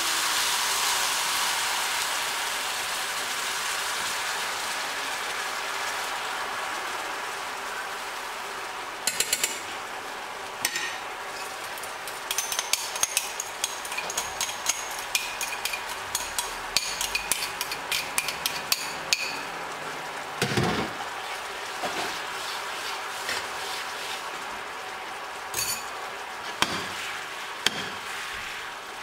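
Fish sauce and sugar mixture sizzling in a hot frying pan of oil and fried garlic and shallots, loud at first and slowly dying down as it settles to a boil. From about a third of the way in it crackles and pops as the sauce bubbles and reduces, with one dull knock a little past the middle.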